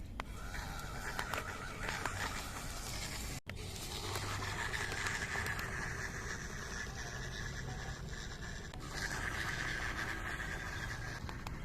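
Small electric motor of a toy RC car whining steadily while its tyres scrape and crunch over rough ground. The sound drops out for an instant about a third of the way in.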